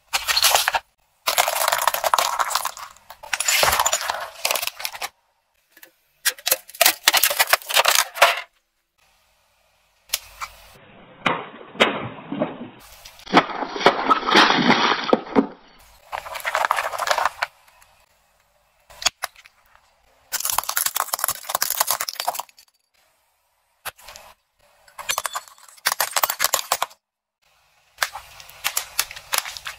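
Plastic bottles packed with water beads crunching and cracking under a car tyre, in a run of short bursts of crackling that start and stop abruptly, with brief silences between them.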